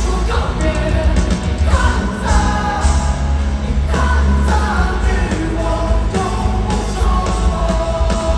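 Live rock band playing loud through a stadium sound system, with heavy bass and drums under sustained pitched guitar or vocal lines.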